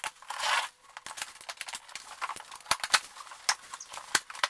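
A cardboard box of fishing gear being unpacked by hand: a brief rustle of packaging, then a string of irregular sharp clicks and knocks as items are handled inside the box.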